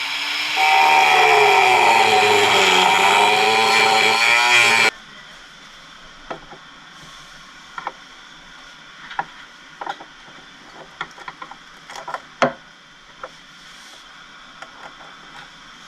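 A handheld power tool runs loudly for about five seconds, its pitch wavering as it works, then cuts off suddenly. Scattered clicks and knocks of handling follow.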